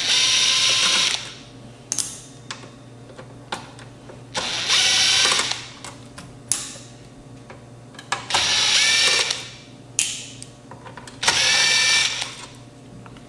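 Cordless impact driver in screwdriver mode spinning in four short runs of about a second each, backing out screws, with small sharp clicks between the runs.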